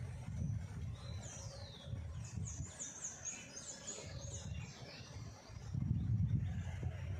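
A bird calling: a high falling whistle about a second in, then a quick run of short high chirps, over a low rumbling noise that swells near the end.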